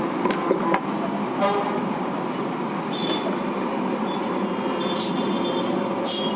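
Steady road-traffic noise with vehicle horns tooting, the horns sounding on and off from about halfway through.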